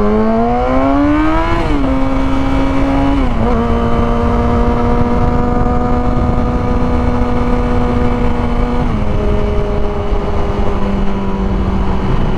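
Yamaha R6 inline-four engine pulling hard, its pitch climbing and then dropping at upshifts about 1.7 s and 3.5 s in. It then holds a steady cruising pitch and steps down lower about 9 s in, with steady wind rush underneath.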